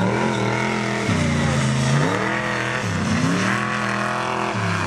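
Mega mud truck's engine revving hard as it races across the dirt, the pitch climbing and then dropping off sharply three times.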